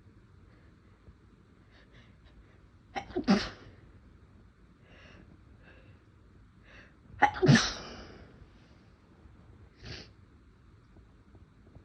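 A person sneezing twice, about three and about seven seconds in, induced sneezes each with a short hitching catch of breath right before the loud burst. Faint short breaths come between them, with one more near the end.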